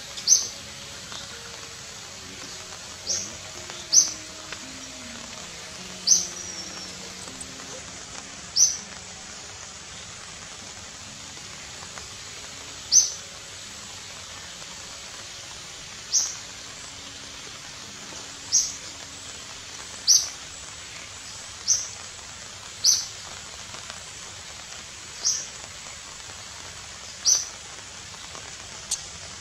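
A bird calling with a short, sharp, high chirp, repeated about a dozen times at irregular gaps of one to four seconds, over a steady background hiss.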